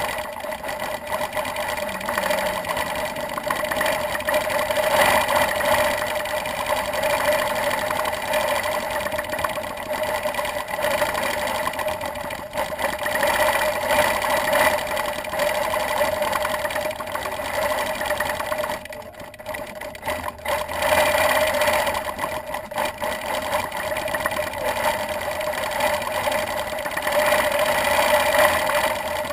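Gammill longarm quilting machine stitching continuously as it is guided through free-motion feather quilting, a steady motor-and-needle running sound. It eases off briefly about two-thirds of the way in, then runs on.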